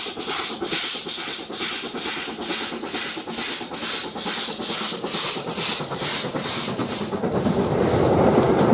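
Double-headed steam locomotives, an LMS Black Five 4-6-0 leading a Bulleid Battle of Britain light pacific, working hard. They give sharp, even exhaust beats about three a second over the hiss of open cylinder drain cocks. Near the end a heavier rumble of engines and coaches passing close rises.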